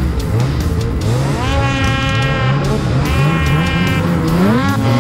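Snowmobile engines revving: the pitch climbs and holds high about a second and a half in, falls back, climbs and holds again around three seconds, then rises once more near the end.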